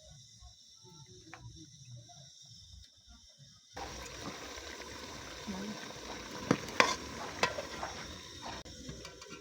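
Mandazi dough deep-frying in hot oil: a steady sizzle that starts abruptly a little under four seconds in. A few sharp clicks sound over it.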